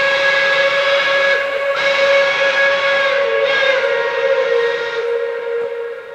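Steam locomotive whistle sounding one long blast, its pitch dipping slightly about three seconds in, then fading away near the end.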